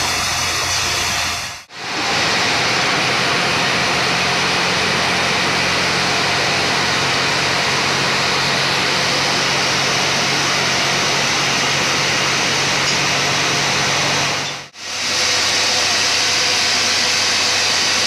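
Band sawmill machinery running steadily: an even motor hum under a continuous whir. The sound dips out briefly twice, about two seconds in and near fifteen seconds.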